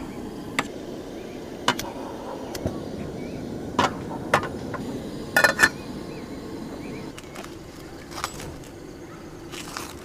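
Camp cooking: scattered short knocks and clicks of utensils and cookware, irregularly spaced with a quick cluster about halfway through, over a steady low rumble, with faint bird chirps behind.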